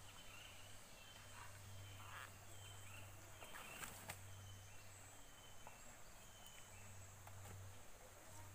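Faint outdoor ambience: short, high, slightly falling chirps repeating about once a second, over a steady low hum.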